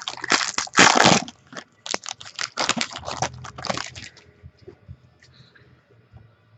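Trading card packaging being torn open and crinkled by hand: a dense run of crackles for about four seconds, then only faint handling noise.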